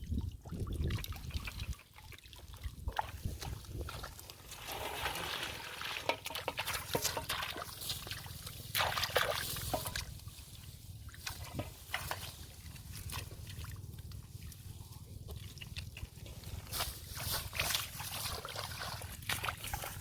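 Shallow water sloshing and trickling, with irregular splashes that come and go.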